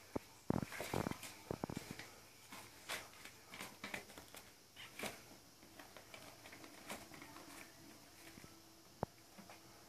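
Six-week-old kittens scampering and tussling on newspaper over a tiled floor: irregular crinkles, rustles and light patters of paws, busiest in the first half and thinning out later, with a single sharp tick about nine seconds in.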